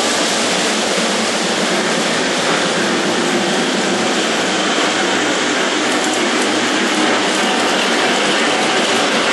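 Lionel model train running on three-rail track: a steady mechanical rumble of wheels and gearing on the metal rails.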